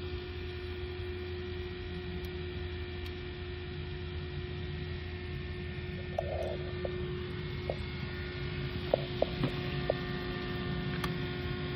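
Steady electrical hum with a fixed pitch. In the second half come a short scratchy sound and a handful of brief, faint clicks.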